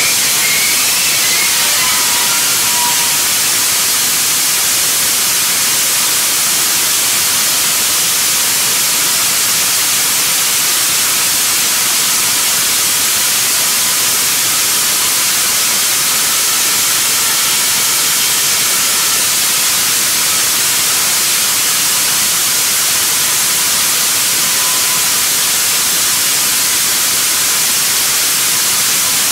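Nitrous oxide / thermoplastic hybrid rocket motor firing on a static test stand: a loud, steady hiss that holds level and does not change.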